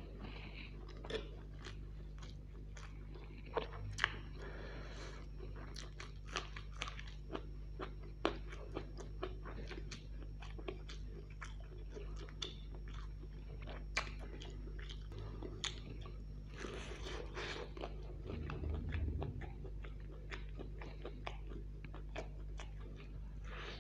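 A person chewing and biting fried chicken leg and chow mein noodles, with many short, sharp crunchy clicks over a steady low hum.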